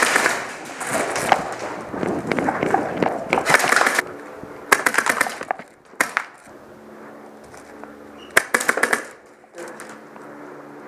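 Airsoft guns firing in several short rapid bursts, mixed with clattering movement. A steady low hum sits under the quieter second half.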